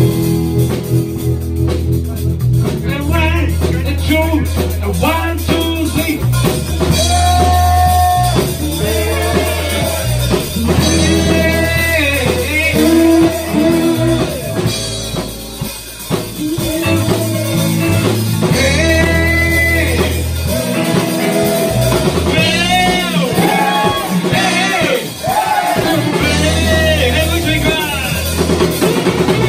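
Live rock and roll band playing: electric guitars and a drum kit over deep bass notes, with a male voice singing the lead line.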